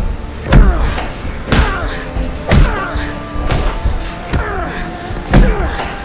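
Heavy punch and body-hit sound effects landing about once a second, six blows in a row. A dramatic music score plays under them.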